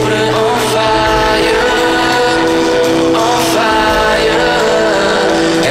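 A live band with electric guitar and keyboard playing amplified music, with long held sung notes over it.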